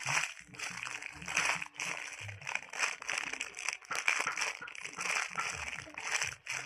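Foam banana squishy toy being squeezed and kneaded by hand: irregular soft squishing and crackling, a run of short uneven squeezes.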